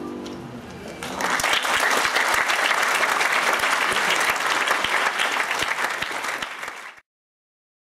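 The last ringing notes of the angklung die away, and about a second in an audience breaks into steady applause. The applause cuts off suddenly near the end.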